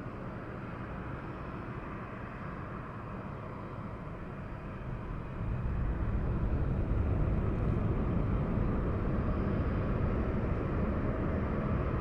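Jet airliner's engines at takeoff power on the runway: a steady low rumble that grows clearly louder about five seconds in as the takeoff roll comes on.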